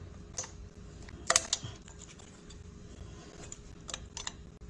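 A few scattered light metallic clicks of a spanner on the small ground-wire screw of an ice machine's water pump as the screw is worked loose, the loudest about a second in.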